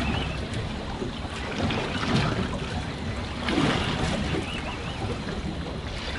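Sea water sloshing and slapping against the hull of a small fishing boat in a choppy sea, with wind on the microphone; the water swells up in a couple of surges.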